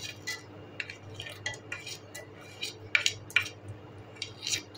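Metal spoon clinking and scraping against a ceramic plate as whole spices are pushed off into a pot of oil: a dozen or so irregular, sharp clinks, the loudest about three seconds in.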